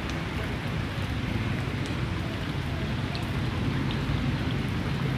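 Heavy rain pouring steadily onto flooded ground and standing puddles, with a low rumble underneath and faint drop ticks on top.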